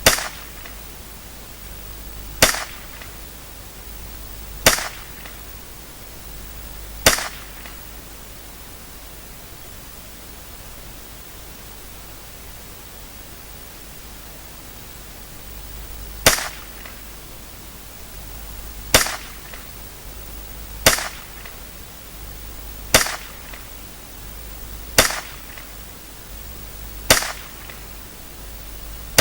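Henry Youth lever-action rifle firing .22LR rimfire rounds one at a time, about two seconds apart: four shots, a pause of about nine seconds, then six more and another right at the end.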